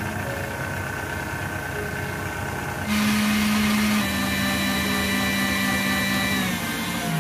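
KitchenAid Classic stand mixer running, its wire whisk beating egg whites with sugar into a meringue: a steady motor whine over the whirring of the whisk in the steel bowl. It gets louder and fuller about three seconds in, and its pitch dips slightly near the end.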